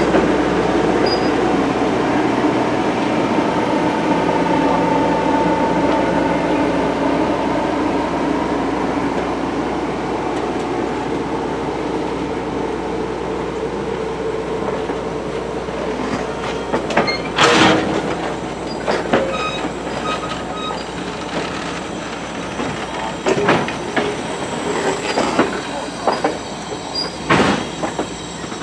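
Passenger cars rolling slowly past on jointed track: the steel wheels rumble and squeal on the rails. In the second half come sharp clacks as the trucks cross rail joints, two of them much louder than the rest.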